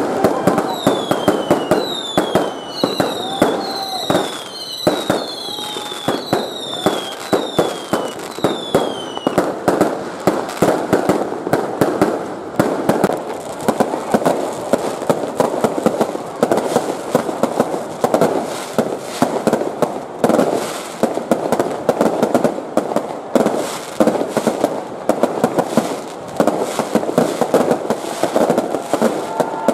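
Fireworks and firecrackers going off without a break, a dense run of cracks, pops and bangs. Over roughly the first nine seconds a string of shrill whistles, each falling in pitch, rides over the bangs.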